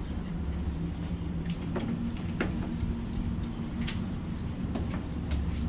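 Steady low hum with a handful of faint, sharp clicks scattered through it, like gun or magazine handling; no gunshots.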